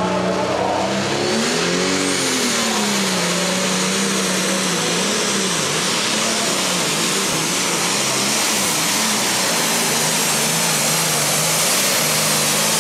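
Heavy Super Stock pulling tractor's turbocharged diesel engine at full throttle, hauling the weight-transfer sled down the track. The engine pitch surges and wavers, with a high whine that climbs in pitch through the second half.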